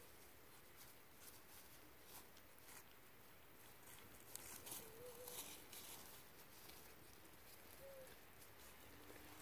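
Faint patter of small clicks from a Pomeranian puppy moving about, busiest about halfway through, with a few brief soft squeaks.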